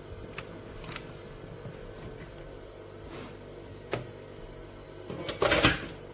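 A steady low machine hum with a few light clicks, and a brief louder clatter about five and a half seconds in.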